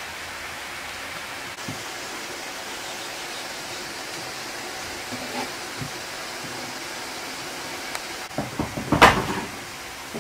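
A steady hiss of background noise, then a brief clatter of several sharp knocks near the end, one knock much louder than the rest.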